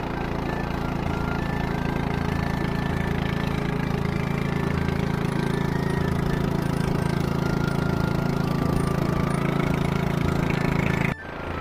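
Engine of a long, narrow motorboat running steadily under way, a constant low drone with a short break near the end.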